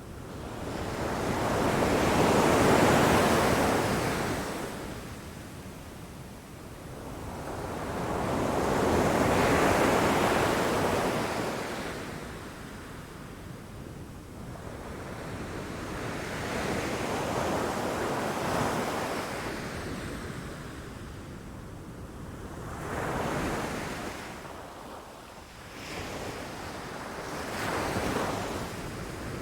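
Ocean waves breaking against rocks and the shore, each wave swelling and washing away; two big surges in the first half, then several smaller ones.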